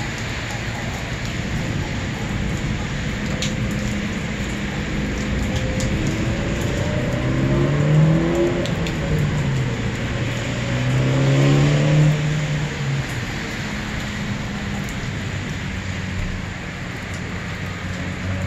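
Steady hiss of heavy rain. About seven seconds in, a road vehicle's engine accelerates below, rising in pitch, dropping back, then holding steady for a few seconds before fading.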